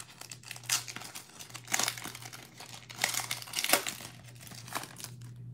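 Foil wrapper of a trading-card pack crinkling and tearing as it is ripped open and peeled back by hand, in irregular rustles over a faint steady low hum.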